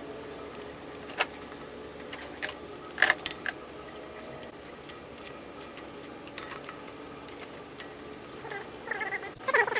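Scattered light clicks and taps of small parts and tools being handled, over a faint steady hum.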